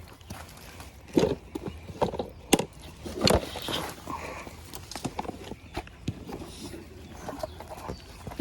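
Footsteps crunching over uneven ground and brush in an irregular rhythm, with louder knocks about a second, two and a half and three seconds in.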